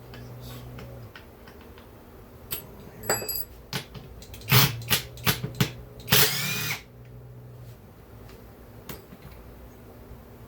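Power driver run in four quick bursts, then one longer spin of about half a second, with light metallic clicks and clinks just before.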